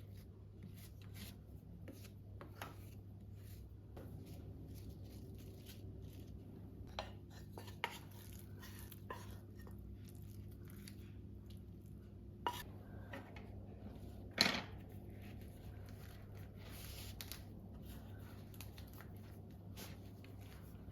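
Kitchen items being handled: scattered light knocks, clicks and taps, with one louder clatter about two-thirds of the way through, over a low steady hum.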